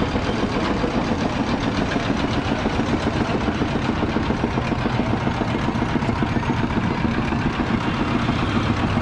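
An engine idling steadily nearby, a constant low running sound with a fast flutter, over general street noise.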